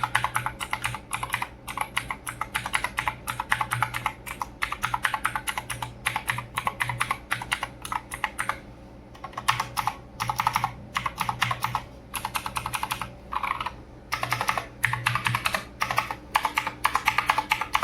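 Typing on a tenkeyless mechanical keyboard with blue clicky switches: fast runs of sharp key clicks, pausing briefly a few times.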